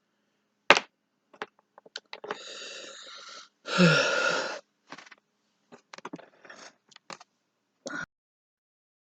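Plastic action figures being handled: a sharp click, then about two seconds of scraping and rustling, then a string of lighter clicks and taps.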